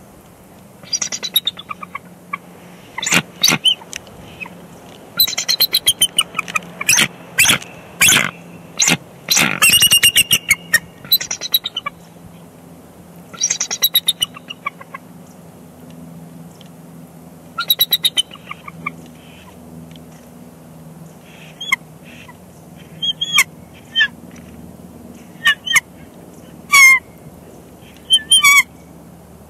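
A pair of bald eagles calling at the nest during an incubation shift change. The calls are bursts of fast, high chittering notes, coming thickly through the first twelve seconds, then as shorter, sparser calls.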